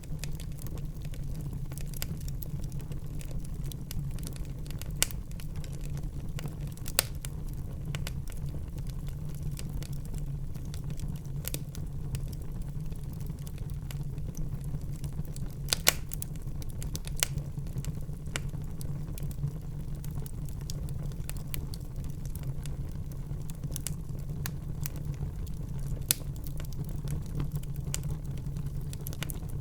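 Wood fire burning in a fireplace: a steady low rumble of the flames with irregular sharp crackles and pops, a few of them louder.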